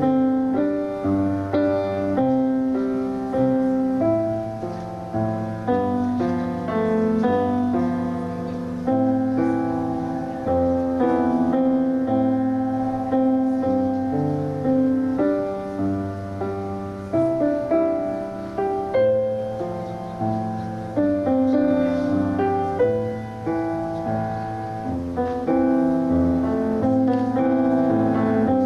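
Solo piano playing a slow, gentle piece of sustained chords, each note struck and then fading.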